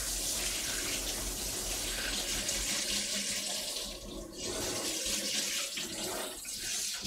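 Kitchen tap running into a sink while a raw chicken is rinsed under the stream. The water's sound shifts as the chicken is moved about, dipping briefly about four seconds in.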